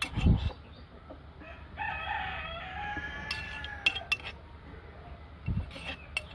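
A rooster crows once, a long call of about two and a half seconds. A low thump comes just before it, with another near the end and a few light clicks.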